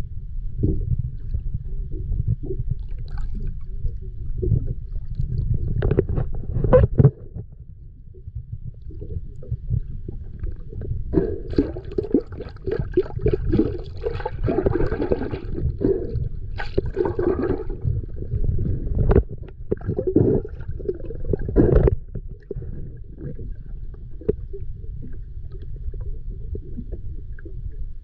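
Underwater sound picked up by a camera in open sea: a steady low rumble of moving water, with patches of gurgling bubbles. There is a strong burst about six seconds in and longer bubbling through the middle, then just the rumble near the end.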